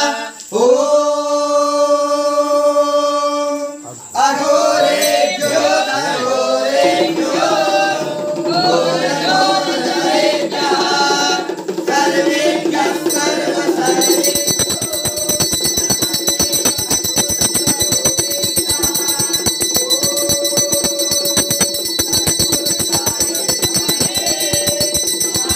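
A group of voices chanting Vedic mantras in worship, opening with one long held note. About fourteen seconds in, a bell starts ringing rapidly and without a break under the fainter chanting.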